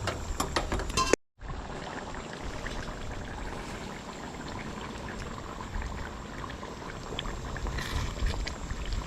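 Chicken curry simmering in a pot, a steady bubbling and sputtering with small pops, after a few clinks in the first second.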